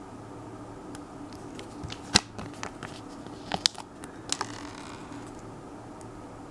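A paper Lego sticker sheet being handled and flexed: a series of sharp clicks and taps, the loudest about two seconds in, then a short crackly rustle.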